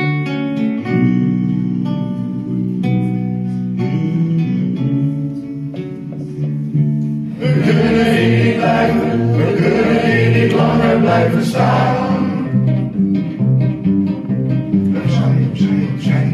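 Small live band of two acoustic guitars and a bass guitar playing a song, with singing. About seven seconds in the playing grows fuller and louder.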